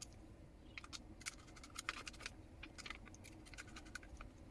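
Faint, rapid small clicks and scratches of screws being driven back in by screwdriver, fixing a 2.5-inch SSD into a laptop drive bracket.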